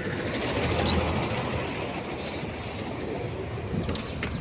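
Bus engine running close by as the bus pulls up and stands at the stop, swelling about a second in. Near the end come a few sharp knocks as feet step up onto the bus's metal entry steps.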